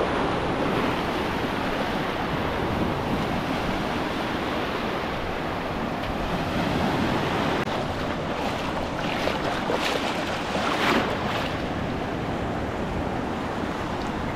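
Sea waves washing onto a beach, with wind buffeting the microphone; one wash of surf swells louder about two-thirds of the way through.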